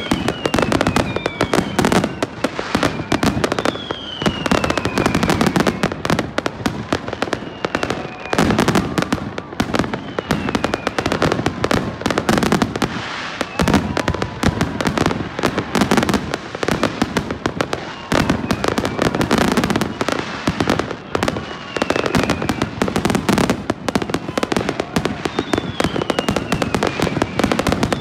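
Aerial fireworks going off: dense, continuous crackling and popping of bursting shells, with louder bangs in clusters every second or two. Every few seconds a whistle slides down in pitch.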